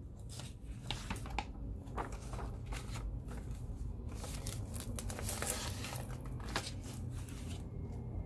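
Paper rustling and crinkling as glossy catalogue pages are shuffled and lifted, busiest about four to six seconds in, over a low steady hum.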